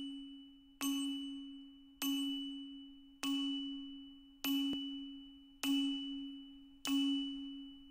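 Countdown-leader sound effect: a low, bell-like ding struck about every 1.2 seconds, each one fading away before the next, over a faint steady high tone.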